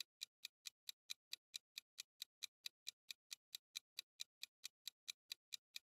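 Quiet clock-style ticking sound effect: short, evenly spaced ticks, about four or five a second, marking the countdown while the puzzle is shown.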